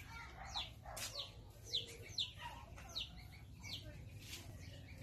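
A bird chirping: a run of short, high notes, each falling in pitch, about two a second, which stop near the end.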